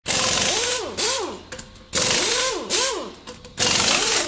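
A machine sounding in loud bursts about once a second, each carrying a whine that rises and then falls in pitch over a hissing rush.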